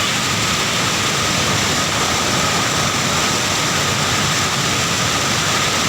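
Floodwater rushing in a steady, unbroken noise, with a faint high steady tone running through it.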